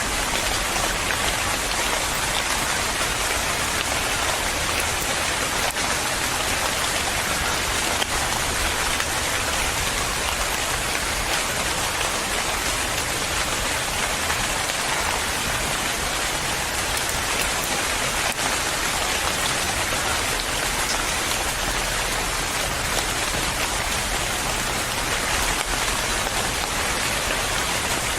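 Steady rain falling on a surface, a constant hiss of drops with faint ticks of individual raindrops.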